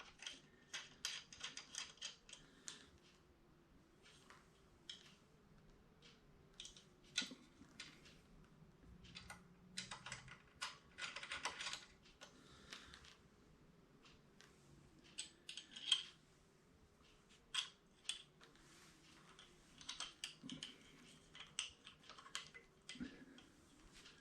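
Small metal parts clicking and rattling in scattered bursts, with quiet gaps between: a side stand foot enlarger plate and its small bolts being handled and fitted onto a motorcycle's side stand foot.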